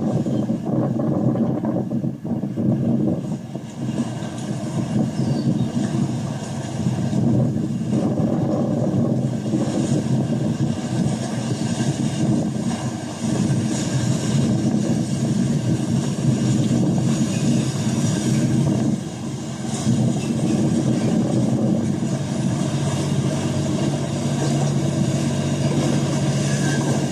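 A boat engine runs steadily as a low hum, mixed with wind and water noise. Its low tone grows stronger in the last few seconds.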